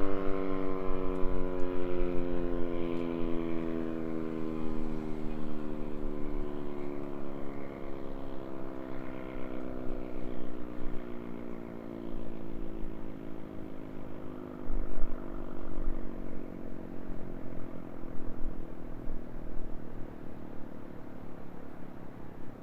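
ACA Banshee 8-port outdoor warning siren winding down after its Full Alert test, its tone sinking slowly and steadily in pitch and fading. Traffic rumbles underneath.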